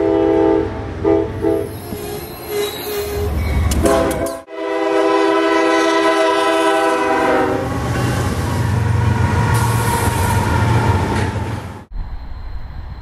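Diesel locomotive horns: an Amtrak P42DC's horn sounds several blasts, then after a cut a freight locomotive's horn is held for about three seconds. The horn gives way to about four seconds of the passing train's engine and wheels, and near the end the sound cuts to much quieter trackside ambience.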